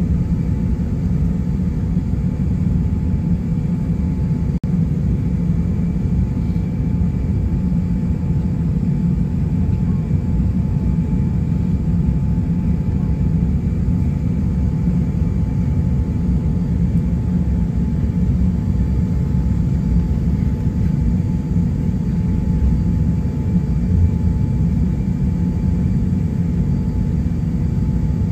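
Steady low rumble heard inside the cabin of an Airbus A350-900 taxiing, its Rolls-Royce Trent XWB engines turning at taxi power, with a few faint steady whining tones above the rumble.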